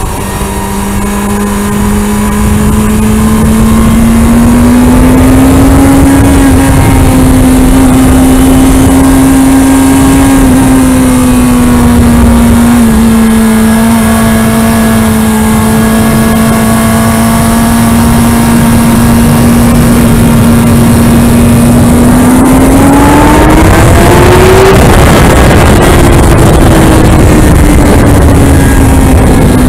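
Kawasaki Ninja ZX-6R inline-four engine running at high revs on track, under heavy wind rush on the helmet microphone. The engine note holds mostly steady, then climbs sharply about three-quarters of the way through and falls back again.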